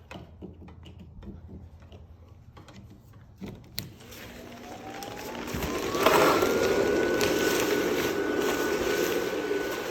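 Base blower fan of a 10-foot inflatable Halloween Reaper switched on with a click a little under four seconds in. Its whine rises as the fan spins up, then holds steady from about seven seconds in over the loud rush of air inflating the figure. A few faint handling clicks come before it.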